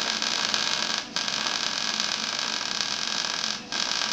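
Electric arc welding: the arc runs as a steady hiss and cuts out briefly twice, about a second in and near the end. The electrode is being held a little high off the work.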